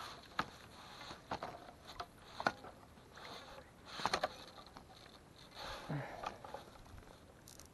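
Fly line being stripped in by hand, with scattered sharp clicks and short soft swishes, a cluster of clicks about four seconds in and a soft swish with a low thud around six seconds.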